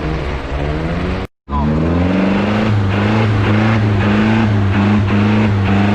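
Off-road vehicle's engine revving hard under load. Its pitch climbs, breaks off for a moment about a second in, then climbs again and holds at steady high revs.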